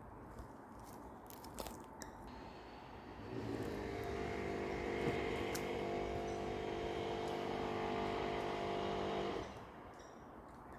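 A steady engine drone, starting about three seconds in and cutting off abruptly about a second before the end, after a few light clicks.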